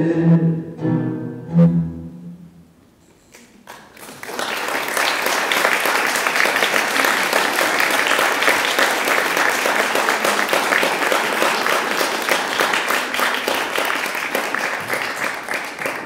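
Closing notes of music with bowed strings that fade out within the first few seconds, then an audience applauding from about four seconds in, a dense and steady clapping.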